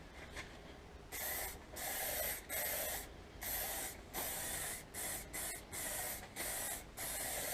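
Aerosol spray can of clear lacquer hissing in a run of short bursts, about ten of them, starting about a second in: the clear coat going on in quick passes.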